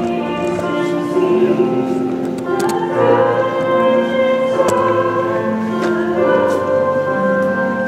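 Church choir singing a slow hymn in long held notes.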